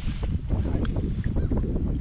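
Gusty wind buffeting the microphone in a steady low rumble, with many short sharp ticks and knocks over it.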